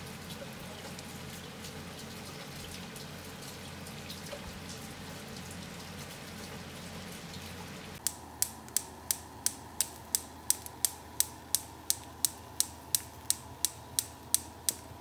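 Steady heavy rain falling. About halfway through it gives way to a regular sharp clicking, about three clicks a second.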